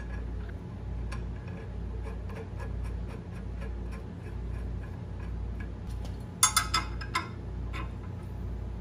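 Light metallic clicking of steel nuts and a wrench being worked on the threaded rod of a homemade cylinder-sleeve puller, with a short run of louder ringing metal clinks about six and a half seconds in. A steady low hum runs underneath.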